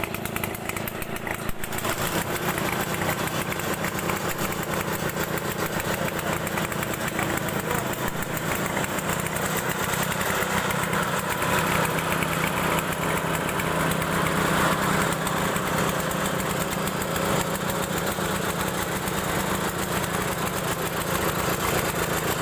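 Small engine driving a chain-driven well-boring rig, running steadily. The sound fills out about two seconds in and then holds a steady hum.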